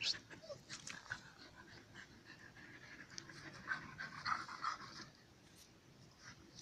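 A dog panting close to the microphone, with short scuffling noises from dogs play-wrestling.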